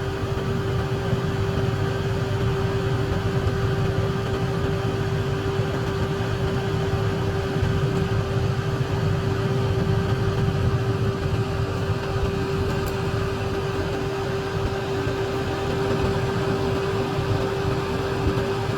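Small battery-powered electric motor of a homemade ceiling fan running steadily, a constant hum with one held tone.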